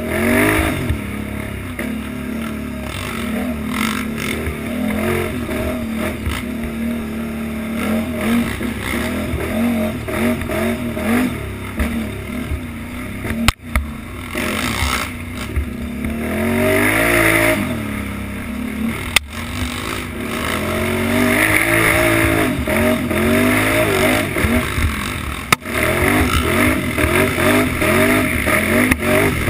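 Utility ATV engine revving up and down over and over as the throttle is worked through a race course, heard close from the machine itself. A few sharp clicks break in about a third, two thirds and most of the way through.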